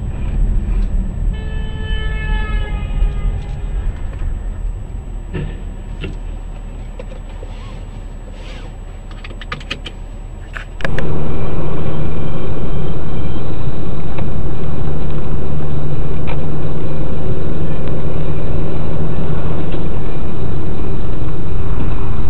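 Dashcam recording from inside a moving car. After a quieter stretch with a falling tone and scattered clicks, it jumps abruptly at about eleven seconds in to a loud, steady engine and road drone.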